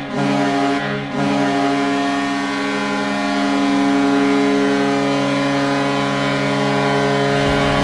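Hockey arena goal horn, as sounded for a Vancouver Canucks goal or win: one short blast, then a long steady blast held for about six seconds. It gives way to music near the end.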